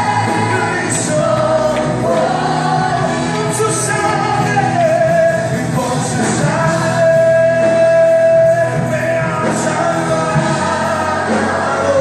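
Live Spanish-language worship song: a praise band with keyboard and a group of vocalists singing, with a long held note about seven seconds in.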